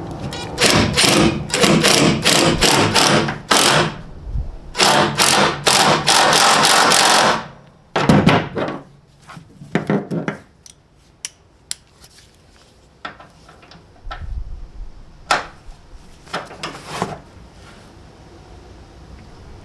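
Tools at work fastening a tie-down clip into a truck bed: a dense run of loud, short mechanical bursts and a longer stretch of continuous tool noise, which stops about seven seconds in. After that come scattered sharp clicks and knocks.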